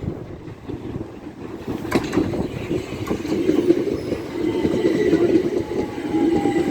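Class 375 Electrostar electric multiple unit running along the platform: a steady rumble of wheels on rail that grows louder, with a click about two seconds in and a faint high whine in the second half.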